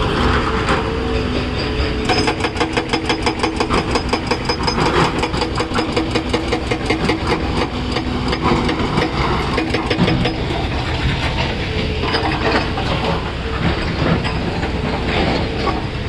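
Diesel excavators running, with a hydraulic rock breaker on the excavator's boom hammering rock in a fast, even run of blows, several a second, from about two seconds in until about eight seconds in. After that the engines keep running, with scattered knocks of rock.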